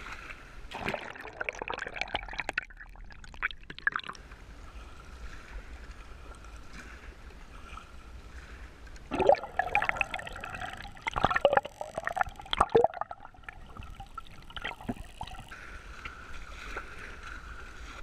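Water splashing and sloshing at a camera held at the waterline. Bursts of gurgling and sharp clicks come about a second in and again from about nine to thirteen seconds in, while the camera is underwater among bottlenose dolphins, whose clicking can be heard there.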